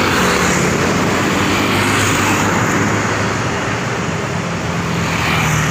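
Steady road traffic noise, with vehicles running close by.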